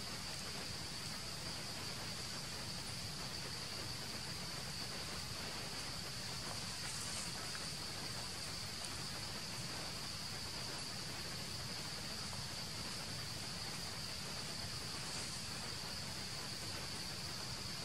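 Insects in the forest keeping up a steady, high-pitched drone without a break, over a soft even hiss of outdoor background noise.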